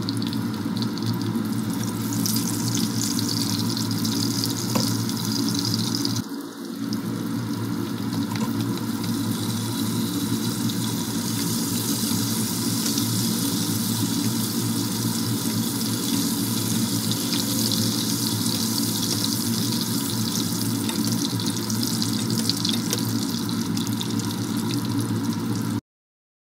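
Salmon fillet frying in hot oil in a pan, with butter added partway through. A steady sizzle with fine crackling, briefly broken about six seconds in, stops suddenly near the end.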